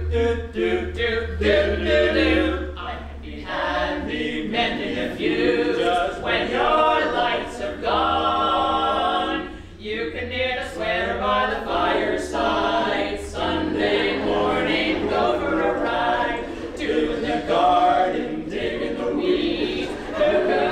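Male barbershop quartet and a woman singing together a cappella in close harmony.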